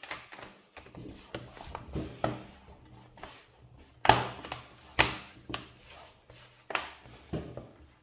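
Plastic bottom cover of a Lenovo IdeaPad 3 laptop being pressed down around its edges, its clips snapping into place: a string of irregular clicks and knocks, the loudest about four and five seconds in.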